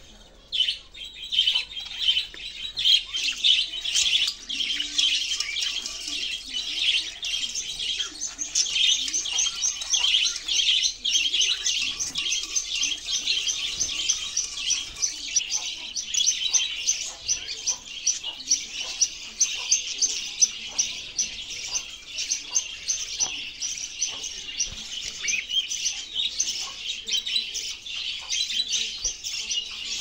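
Budgerigars chirping and warbling without a break, a busy chatter of short high chirps that settles into a fast, even run of notes from about a quarter of the way in.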